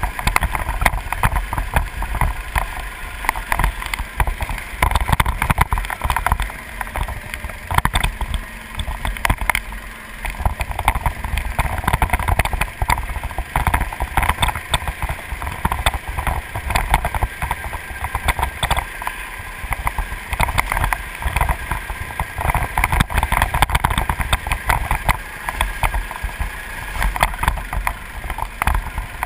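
Go-kart engine running at speed around a track, picked up by a camera mounted on the kart, with heavy wind buffeting on the microphone.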